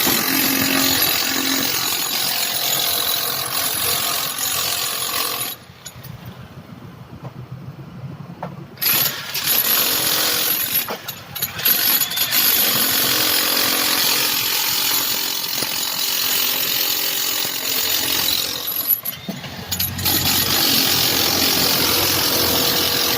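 Loud power tool running in long spells on repair work, cutting out for about three seconds after five or six seconds in and briefly again later before starting up once more.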